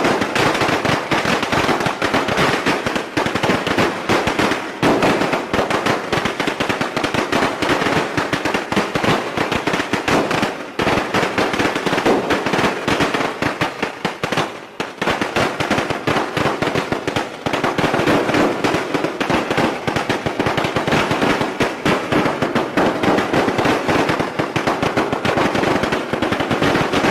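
Fireworks display: a loud, dense, continuous barrage of bangs and crackles.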